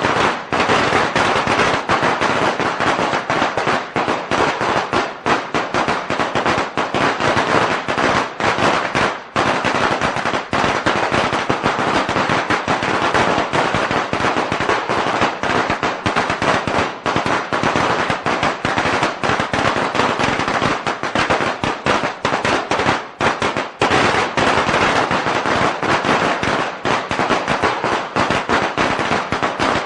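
A long string of firecrackers going off in a dense, continuous rapid crackle of sharp bangs, so many per second that they run together.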